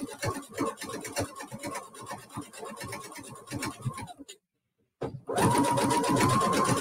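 SINGER Heavy Duty 6800C sewing machine running a straight top stitch, its needle going up and down in rapid even strokes. The sound cuts out completely for about a second a little past the middle, then comes back louder with a steady whine.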